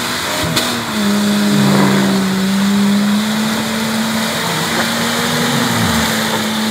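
Off-road SUV's six-cylinder engine held at high revs under load as it climbs a muddy trail, its pitch steady with a brief dip about six seconds in.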